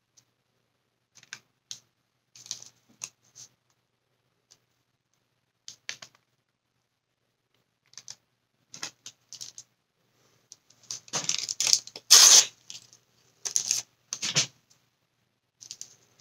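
Crinkling and clicking of a thin plastic sheet handled in gloved hands, in scattered bursts, with a denser, louder stretch about eleven seconds in.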